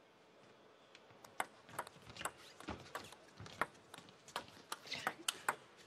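Table tennis ball ticking off the bats and the table in a rally: a quick, irregular run of sharp ticks over faint hall background.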